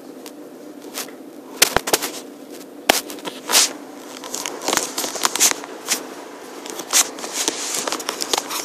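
Irregular sharp clicks and crackles, a string of them from about a second and a half in, over a steady hiss.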